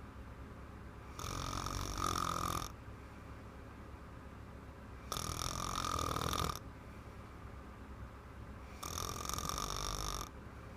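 A woman snoring in deep sleep after drinking wine: three snores about four seconds apart, each lasting about a second and a half.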